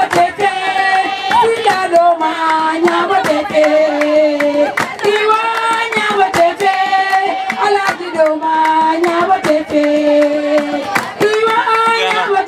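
A group of women singing a repeated chant together in long held phrases, with sharp hand claps throughout.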